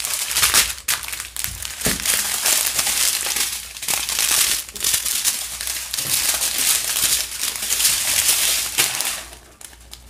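Plastic bags of diamond painting drills crinkling as they are handled and laid out one after another. It eases off shortly before the end.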